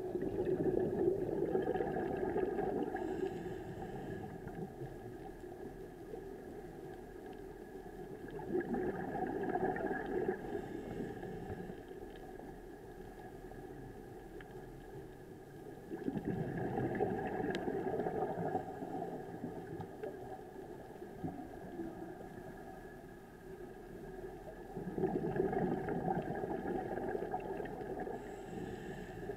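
Scuba regulator breathing underwater: four swells of bubbling exhaled air, one about every eight seconds, each lasting two to three seconds, with quieter stretches between.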